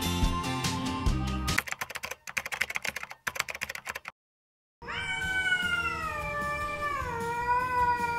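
Domestic cat giving one long, drawn-out meow, begging for food, its pitch sliding slowly down; it starts about five seconds in, after a moment of silence. Before that, background music and a run of rapid clicks.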